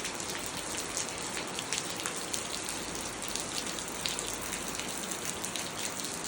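Steady rain falling, with many individual drops ticking and pattering close by over an even hiss.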